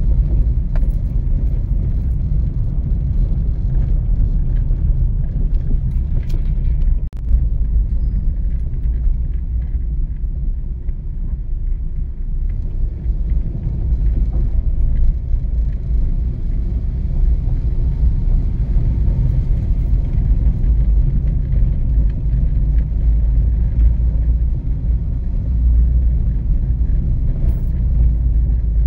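A car driving on city streets, a steady low rumble of engine and road noise. The sound drops out sharply for a moment about seven seconds in.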